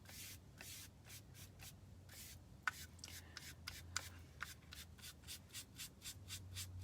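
Foam paint brush dabbing and stroking paint onto a craft pumpkin: quick, faint, repeated brushing strokes, a few a second and getting quicker, with a couple of light ticks.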